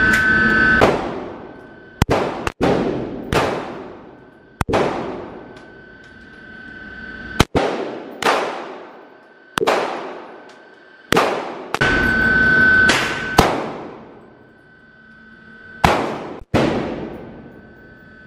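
About a dozen gunshots fired at irregular intervals on an indoor shooting range. Each is a sharp, very loud crack followed by a long echoing decay off the enclosed range.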